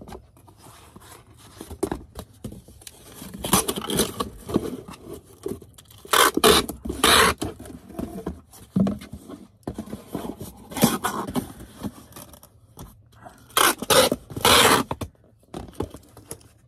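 Packaging being handled: rustling and scraping in several loud bursts a few seconds apart, with quieter handling noise between them.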